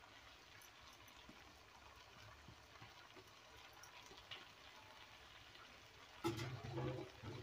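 Faint, low sizzle of a pumpkin and field-bean stir-fry in a kadai over low heat, with a few tiny clicks. A woman's voice starts near the end.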